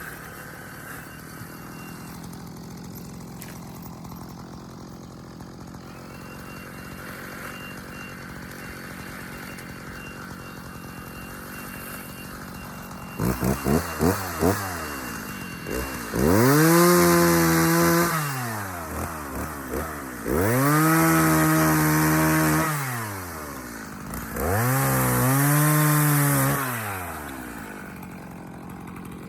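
Two-stroke chainsaw idling, then blipped a few times and brought up to full throttle three times, each for two to three seconds, the pitch sweeping up, holding and dropping back to idle.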